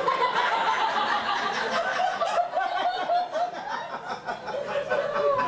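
Audience laughing, many voices overlapping in a long wave of laughter.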